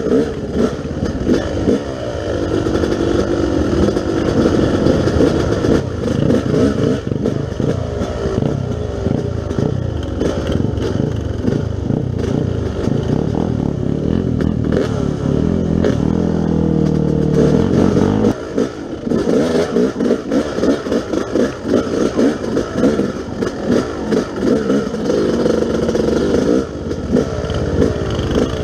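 Yamaha YZ250 two-stroke motocross bike riding off-road, its engine revving up and down with the throttle. About two-thirds through it winds up to a rising rev, then a heavy low rumble drops away abruptly while the engine carries on.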